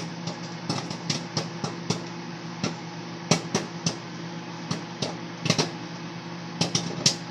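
Microwave oven running with a steady hum while a bag of popcorn pops inside: irregular sharp pops, a few a second.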